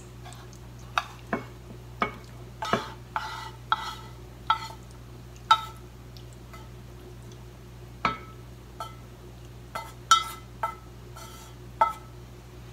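Long wooden cooking chopsticks tapping and scraping against a frying pan as simmered beef and onion are pushed out into a rice bowl. Over a dozen irregular clicks, each with a short ring, with a pause of a couple of seconds midway.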